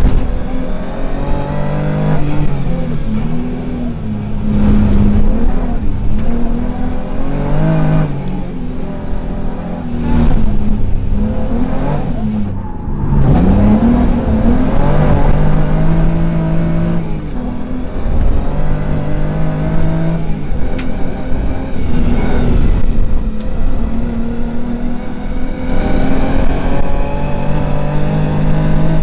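Rally car's engine heard from inside the cabin at full stage pace, revving hard. Its pitch climbs and drops again and again as the driver shifts gears and lifts and brakes for corners.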